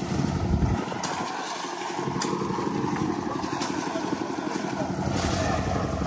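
Construction-site engine running steadily during a concrete pour, with a few sharp clicks and knocks from the work. Its deep rumble thins out for a moment about a second in, then comes back.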